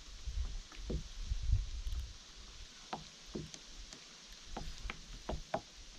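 Light, irregular knocks and small splashes against a fishing kayak's hull, with a low rumble in the first two seconds that then drops away.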